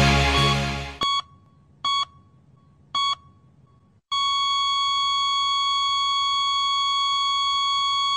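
Rock music fading out, then three short electronic beeps about a second apart, and about four seconds in a single unbroken tone at the same pitch: a heart-monitor beep-and-flatline sound effect.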